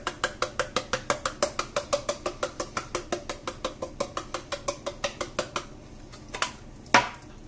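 Paprika shaker shaken over the potatoes: a fast, even clicking of about six shakes a second that stops about five and a half seconds in. Two sharper single knocks follow near the end.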